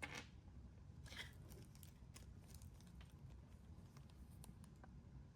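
Near silence: room tone with a few faint soft rustles and small clicks, twice near the start, as of small items being handled.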